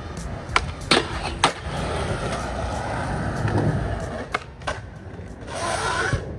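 Skateboard rolling on smooth concrete, its wheels giving a steady rumble, broken by sharp clacks of the board striking the ground: three in the first second and a half and two more a little past the middle.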